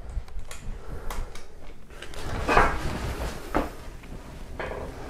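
Triple-square socket and bar being worked on a cylinder-head bolt to loosen it: a few light metal clunks and scrapes, the sharpest about three and a half seconds in.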